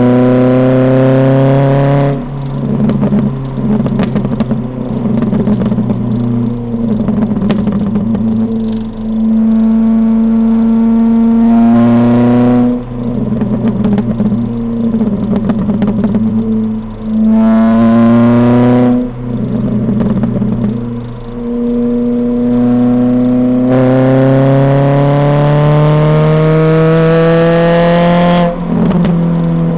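Ford Fiesta ST150 (XR4) 2.0-litre four-cylinder heard through its modified exhaust, revving up in gear four times with a rising note. Each time the throttle is lifted, the exhaust pops and crackles for several seconds on the overrun before the next pull.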